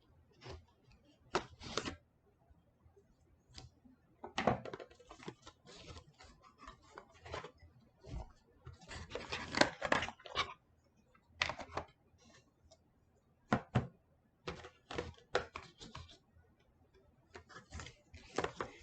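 Paper and cardboard packaging of a phone box being handled: irregular rustling, scraping and light clicks as pamphlets and inserts are taken out, busiest about four seconds in and again near the middle.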